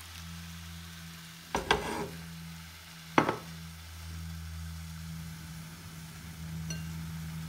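Broth sizzling in a hot frying pan of minced beef and fried onion, a steady hiss as the liquid is poured in and soaks into the meat. Two sharp knocks about one and a half and three seconds in, over a steady low hum.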